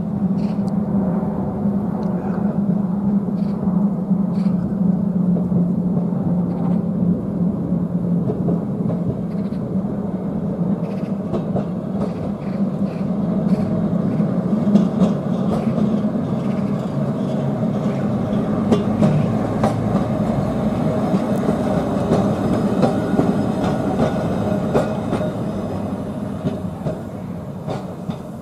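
Double-deck heritage electric tram running along street track: a steady hum with wheels clicking on the rails, fading a little near the end.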